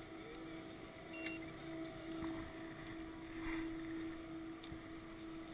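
Steady hum of chairlift machinery with a faint overtone, with a few light clicks of skis and poles.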